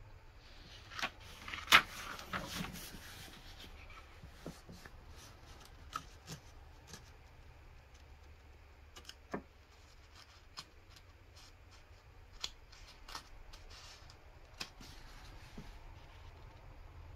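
Paper pages of an instruction booklet being turned: a rustle with a sharp snap about two seconds in, then scattered light clicks and taps as the booklet is handled.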